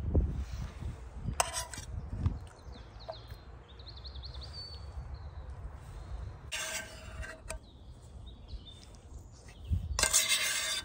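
Outdoor ambience of small birds chirping, over a low wind-like rumble on the microphone. A few dull thumps come early, and three short harsh rustling bursts, the loudest near the end.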